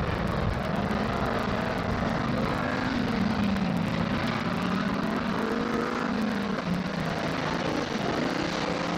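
Several autocross race car engines running hard on a dirt track, overlapping, their pitch rising and falling as they rev and come off the throttle.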